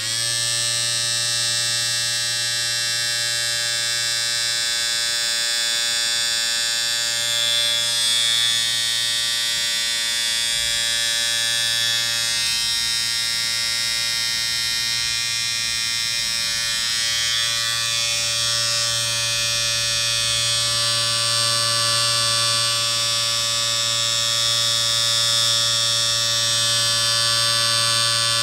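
Electric shaver running with a steady buzz, a low hum under many even overtones, and slight changes in tone at a couple of points.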